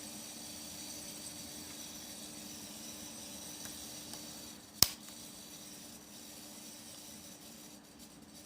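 A single sharp click about five seconds in, over a faint steady electrical hum with thin high whines.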